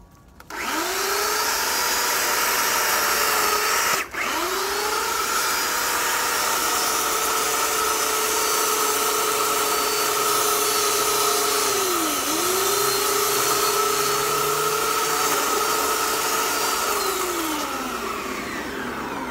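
Electric chainsaw with a dull chain, run in spells for hedge trimming. The motor spins up about half a second in, cuts out and restarts near four seconds, sags briefly and picks up again around twelve seconds, and winds down near the end.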